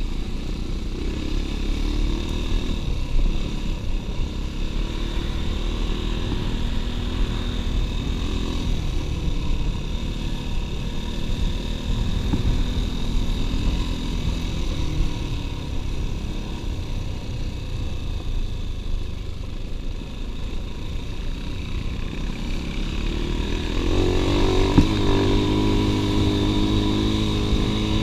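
Dirt bike engine running while riding, heard from on board. The engine note strengthens and gets louder about four seconds before the end.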